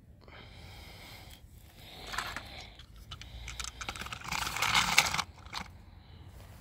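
Clicks and scraping of a die-cast toy car being pushed into the deck of a plastic toy car-carrier truck, with the toys on board rattling. There is a short louder scrape about two seconds in and a longer one past the middle.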